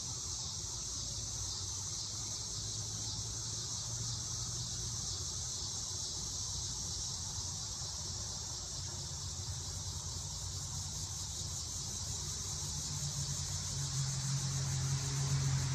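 A steady, high chorus of crickets and other insects chirping in the evening. A low hum grows louder near the end.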